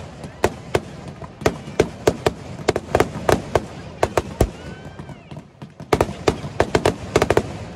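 Aerial fireworks shells bursting overhead as a quick, irregular string of sharp bangs. The bangs thin out a little past the middle, then crowd together in a dense volley in the last two seconds.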